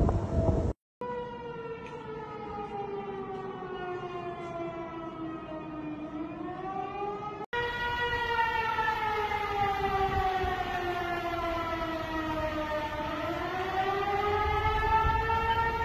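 Outdoor tornado warning siren sounding: one tone with overtones that slowly falls in pitch and rises again, the pattern heard twice, with the audio cut off sharply about a second in and again about halfway through. In the first second, wind buffets the microphone.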